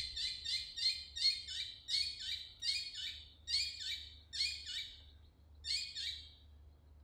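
Collared kingfisher calling: a long run of repeated harsh notes, about three a second, thinning out with a short pause before stopping about six seconds in.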